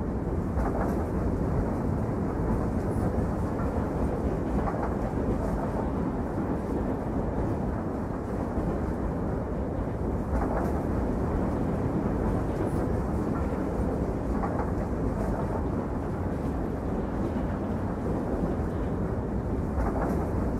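A train running: a steady, muffled rumble with a few faint clicks now and then.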